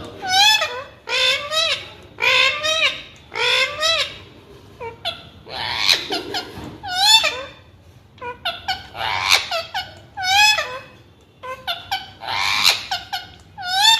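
Indian ringneck parrot talking, imitating human speech in a high, squeaky voice in a run of short phrases with brief pauses between them.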